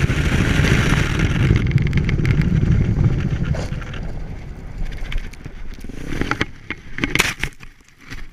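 Dirt bikes on studded tyres running at high speed across lake ice, with heavy wind rush over the engine note. The noise fades over several seconds as the bikes slow, then near the end comes a cluster of knocks and scrapes as a bike crashes into the snow and snow sprays over the camera.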